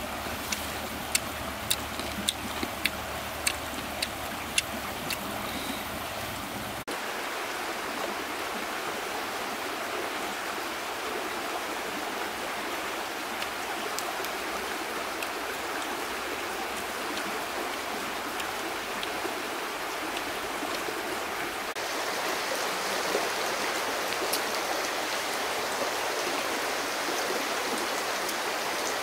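Steady rushing of flowing water, like a stream, with a run of sharp clicks about every half second during the first six seconds.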